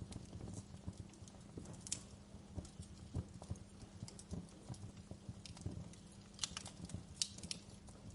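Wood fire in a fireplace crackling, with irregular sharp pops and snaps over a low steady rumble of the burning; a few louder pops stand out, around two seconds in and again near the end.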